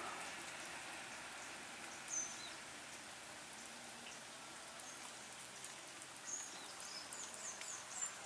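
Steady hiss of light rain, with a few short, high, falling bird chirps about two seconds in and a cluster of them near the end.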